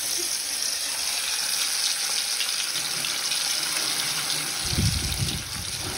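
Hot oil sizzling in a kadai as spices are dropped in: a steady hiss. A low rumble about five seconds in.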